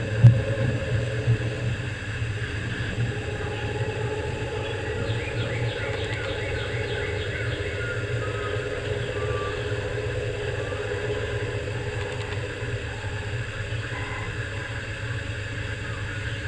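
Steady low hum with background noise throughout, and a few faint high chirps near the middle.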